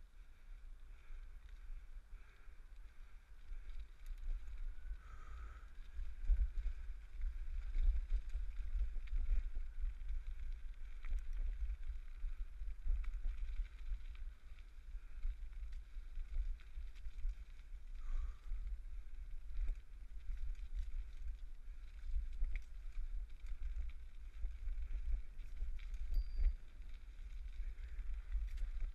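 Bicycle ridden along an unpaved towpath, heard through a GoPro on the bike: a low, fluctuating rumble of wind and tyre noise with scattered small ticks and rattles.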